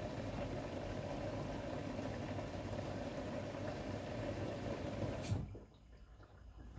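Beko bPRO500 washing machine running a steady hum with water noise during its calibration cycle, cutting off abruptly with a click about five seconds in.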